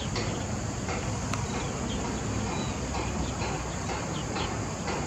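Steady outdoor background noise of a shallow rocky stream, with faint short high bird chirps scattered through and a brief thin whistle about two and a half seconds in.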